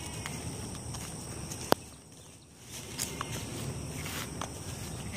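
Footsteps walking through pasture grass, with a steady high-pitched tone behind them and one sharp click about two seconds in.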